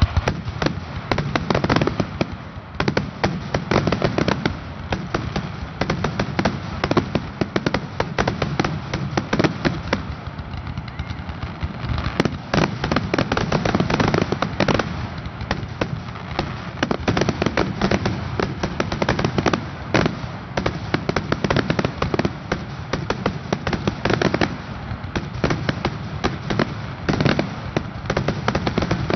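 Aerial fireworks in a dense, unbroken barrage of launches and shell bursts, many overlapping with no pause: a fireworks show finale.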